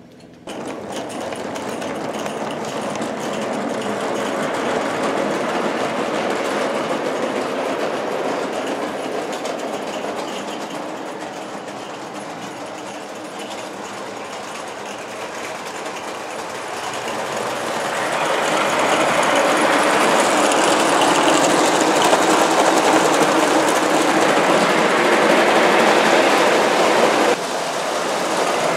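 Bassett-Lowke O gauge live-steam Enterprise locomotive pulling tinplate coaches round tinplate track: a fast, dense clatter of wheels and running gear. It grows louder, eases off, then grows louder again, and drops sharply near the end.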